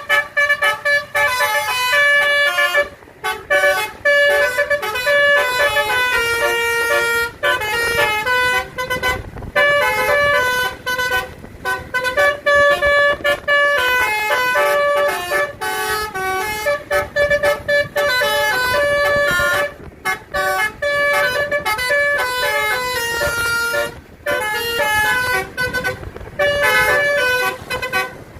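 A bus's Basuri "telolet" musical air horn playing a fast tune of short, loud horn notes that change pitch from note to note, with a few brief pauses between phrases.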